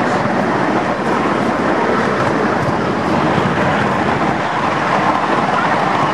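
Ride-on miniature railway train running along its track: a steady, continuous noise of the wheels on the rails.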